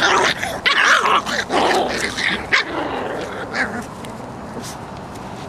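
Cavalier King Charles Spaniel puppies barking at play: a rapid run of short, high-pitched barks in the first three seconds, then only a few scattered calls.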